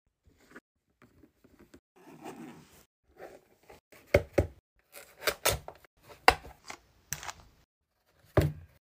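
Hands handling a hard-shell carrying case as it is opened: scattered sharp clicks and knocks, the loudest in the second half, with a soft scraping stretch about two seconds in.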